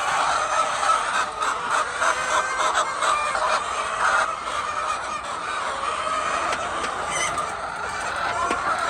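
A flock of chickens clucking and calling together, a dense, continuous chatter of overlapping calls.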